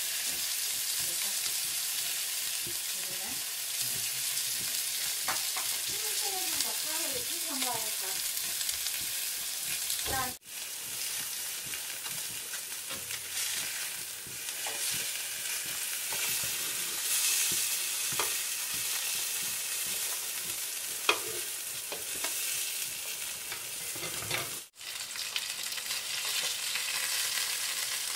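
Salmon fillets sizzling steadily as they fry in a pan, with an occasional brief clink of a slotted metal spatula turning them.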